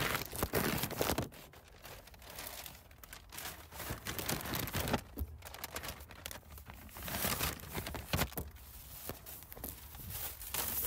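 Irregular rustling and crinkling noise with scattered clicks, loudest in the first second.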